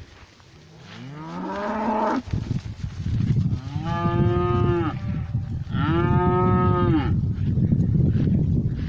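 Cattle mooing three times, each call about a second long: the first rises in pitch, the next two are higher and held level. A steady low rumble runs underneath from a couple of seconds in.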